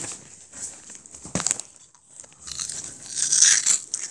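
Crisp Jagalchi snack being bitten and crunched close to the microphone, with crinkling of the plastic snack bag; the loudest crunching comes in the second half.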